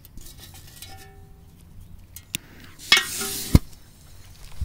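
Handling noises and light clicks while a Korsar 8 firecracker is set up. About three seconds in there is a short hiss that ends in a sharp click.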